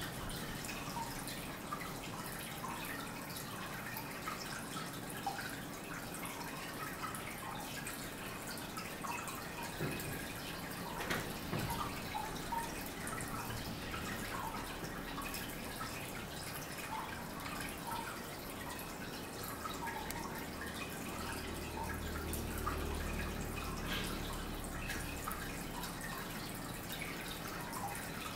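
Water dripping and trickling steadily, in many small scattered drops.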